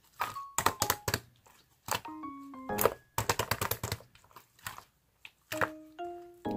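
Mixed slime being squeezed and stretched by hand, giving off clusters of sharp clicks and pops as trapped air pockets burst. A few notes of light background music come in between the click clusters.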